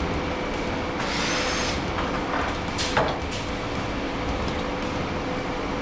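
A handheld power driver whirs in one short burst about a second in, taking apart metal electrical equipment. A sharp metal knock follows about two seconds later, over a steady shop hum.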